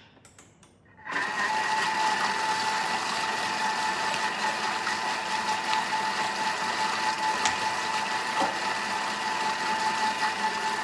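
Thermomix food processor running at speed 4, mixing a thick mayonnaise-based burger sauce: after a few faint clicks it starts about a second in and holds a steady motor whine.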